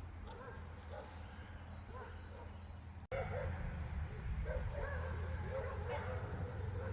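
An animal's short whining calls, repeated many times over a steady low rumble; the sound cuts out for an instant about three seconds in and comes back louder.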